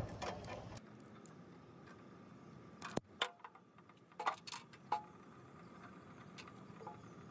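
Hand wire strippers working on wire ends, giving scattered small sharp clicks and snaps: a pair about three seconds in, then a quick run of four around four and a half seconds.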